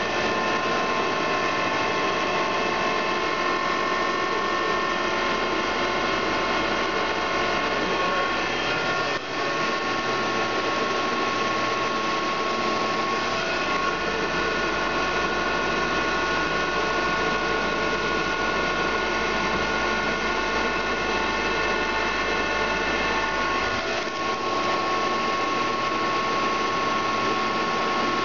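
Mollart A175 CNC twin-spindle gun drill running under power: a steady machine hum carrying several steady whining tones, with a brief dip about nine seconds in.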